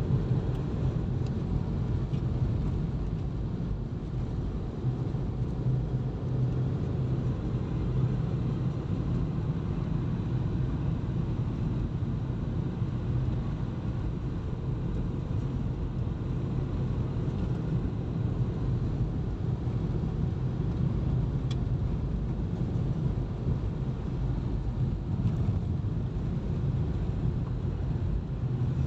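Steady low rumble of a car's engine and tyres on a snow-covered road, heard from inside the moving car's cabin.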